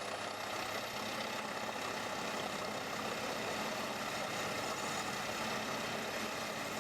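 Large wood chipper's engine running steadily at an even pitch, with no logs being chipped.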